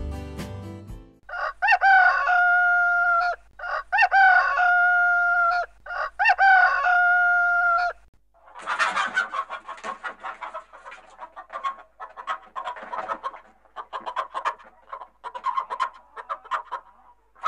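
A rooster crowing three times, each crow a long call that rises briefly and then holds. From about eight seconds in, hens cluck in quick, choppy bursts.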